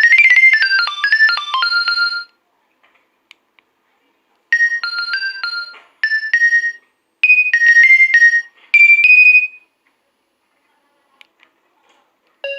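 Nokia 2300 ringtones: a quick, high, beeping melody ends about two seconds in. After a pause, another ringtone plays in short phrases with gaps between them, and a third begins near the end.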